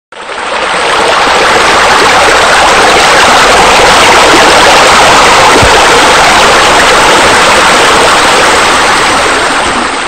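Loud, steady rush of falling and splashing water, a water-feature sound laid over a computer render; it fades in over the first half second.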